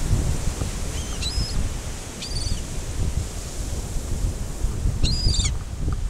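Gulls calling with three short cries, about one, two and five seconds in, over low wind buffeting the microphone and surf.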